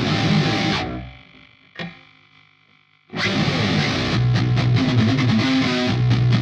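Sterling JP70D seven-string electric guitar played through a Line 6 POD HD500 with a distorted tone. A phrase rings out and fades, followed by one short plucked note and a near-silent gap. About three seconds in the playing comes back abruptly with chugging, palm-muted low riffing.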